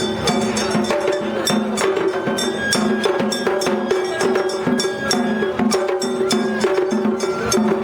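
Japanese festival float hayashi music: drums and a small metal gong struck in a quick, steady rhythm over sustained pitched tones.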